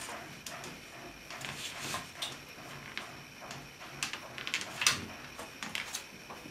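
Wooden viola mould and ribs being handled and shifted on a workbench: scattered light clicks, knocks and short scrapes of wood on wood and paper, the loudest a sharp knock about five seconds in.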